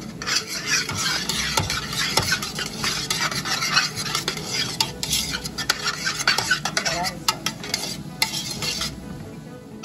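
A spoon stirring and scraping chopped onions and carrots, now dusted with flour, around a stainless steel pot, with a light sizzle as the flour cooks into the onions. The stirring stops about nine seconds in.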